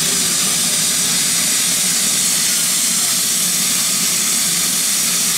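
Steam hissing steadily and loudly from a small saddle-tank steam locomotive, escaping around the cylinders and from the top of the boiler.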